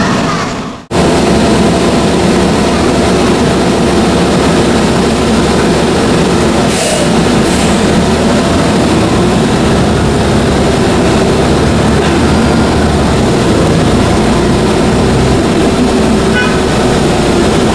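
Subway train running, a loud, steady rumble with a wavering hum, after a brief cut-out under a second in.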